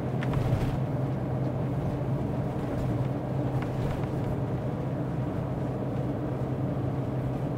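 Motorhome driving at speed, heard from inside the cab: a steady low drone of engine and road noise.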